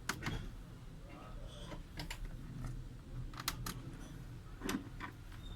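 Scattered small clicks and taps of a screwdriver and screws on a laptop's plastic bottom case as the back-cover screws are refitted: two near the start, a quick cluster of three about three and a half seconds in, and two more near five seconds.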